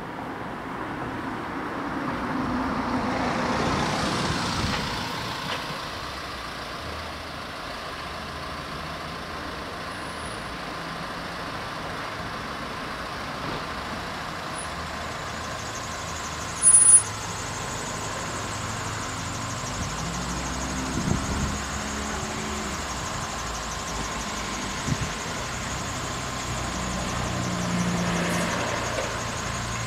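Level crossing warning bell ringing steadily while the barriers are down, over road traffic: a car drives past a few seconds in, waiting cars idle, and a lorry pulls up near the end. A short, sharp, high beep cuts in about halfway through.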